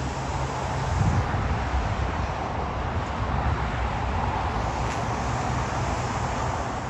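The jet engines of a taxiing British Airways Boeing 777 make a steady rushing hum at taxi power. Wind buffets the microphone with a low, uneven rumble.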